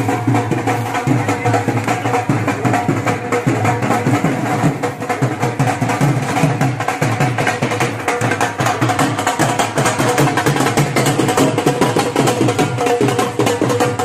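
Dhol drum beaten in a steady, continuous rhythm.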